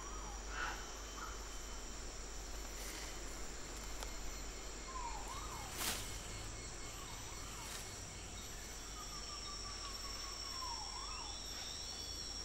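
Tropical rainforest ambience: a steady high insect drone, with a few short whistling calls that dip and rise, one longer falling call near the end, and occasional faint snaps.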